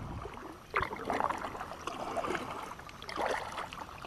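Kayak paddle strokes: the blade dipping and splashing in the river water, with drips running off it, in uneven clusters.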